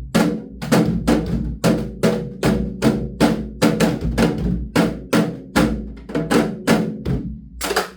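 Janggu (Korean hourglass drum) played in a steady rhythm, sharp stick strokes on the high head mixed with deep thuds from the low head, about two to three strokes a second, closing with a final stroke near the end.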